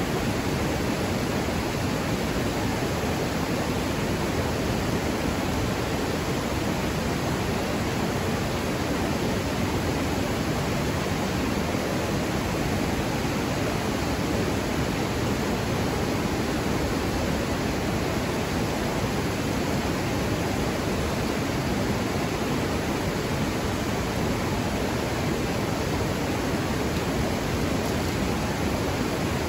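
River rapids: fast water rushing over rocks in a steady, unbroken roar of white noise.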